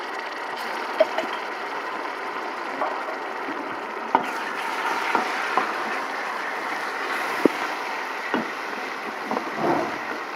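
Sliced onions and garlic-ginger paste sizzling steadily in hot oil in a metal pot, with scattered sharp pops and knocks as a wooden spoon stirs. The onions are at the browning stage of frying.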